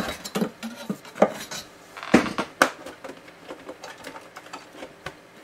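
Scattered clinks and light knocks of small hard objects being handled and set down on a table, the loudest a pair of sharp taps about two seconds in.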